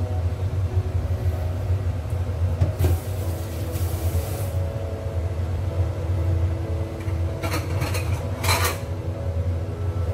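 Steady low hum from an electric cooktop heating a big stainless steel pot of water with pork lungs in it. A short hiss comes about three seconds in, and two brief noisy bursts come near the end.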